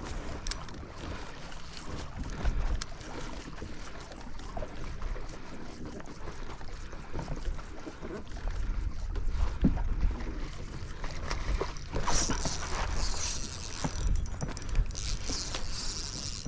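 Wind buffeting the microphone over a kayak on the water, with small clicks and knocks of tackle handling. In the last few seconds a spinning reel whirs as it is cranked in.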